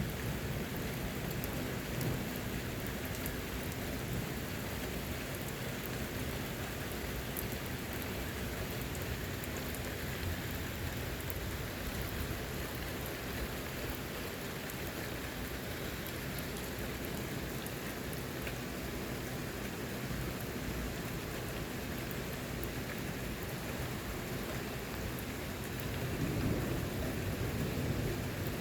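Steady rain falling from a passing thunderstorm cell, with a low rumble of thunder swelling near the end.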